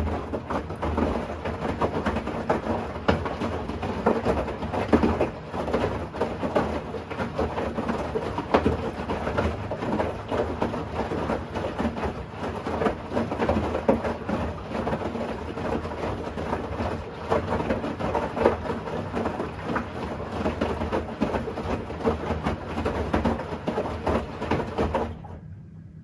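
Bosch Series 6 i-dos front-loading washing machine drum turning in the wash phase, with wet laundry and water sloshing and knocking as it tumbles. It starts suddenly and stops about a second before the end, leaving only a low hum.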